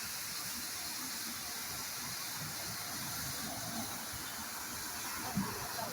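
Steady hiss of steam escaping from an LMS 'Jinty' 0-6-0 tank locomotive standing at rest, with one short low knock about five seconds in.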